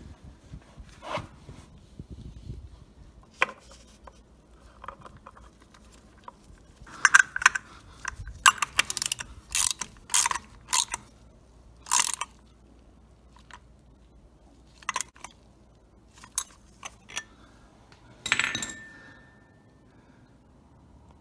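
Metal tool and oil filter clicks and clinks as a new oil filter is fitted and tightened by hand. A run of sharp clicks comes in the middle, and a single clink rings briefly near the end.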